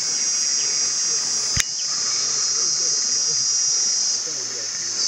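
Steady high-pitched drone of an insect chorus, with a single sharp click about one and a half seconds in.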